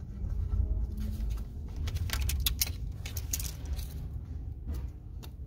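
Light metallic clicks and rattles, most of them about halfway through, as hand tools work a hose clamp on the low-pressure fuel line at the port-injection fuel rail, over a steady low hum.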